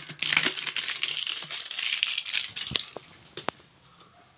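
Thin plastic water bottle crinkling and crackling in the hands as its label wrapper is pulled off, for about two and a half seconds, followed by a few separate sharp clicks.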